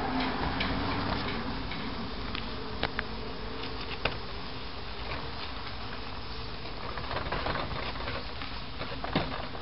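Oiled paratha frying in a nonstick pan, a steady sizzle, with a few sharp clicks of a spatula against the pan.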